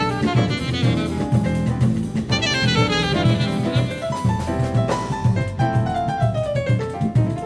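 Live instrumental jazz band playing: saxophone, piano, electric bass and drum kit, with fast runs of notes over a steady drum groove.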